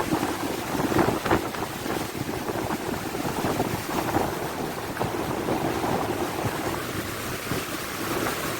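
Strong, gusty wind buffeting the microphone, a continuous rushing noise with repeated blasts.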